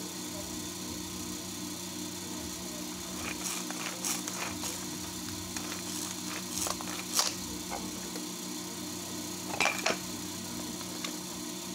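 Plastic packaging and a cardboard box being handled, giving irregular crackles, rustles and clicks, loudest about seven seconds in and near ten seconds, over a steady background hum.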